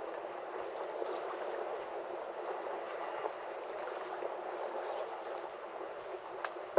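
Harbour water lapping and splashing against the quay, a steady wash of water noise with small scattered ticks, and a sharp click right at the end.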